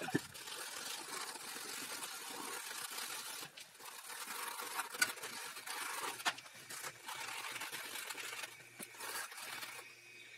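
Blue paper shop towel rubbed hard over the metal intake-port face of a cylinder head to wipe off grime: a dry scrubbing hiss in strokes, with short pauses and a few light knocks.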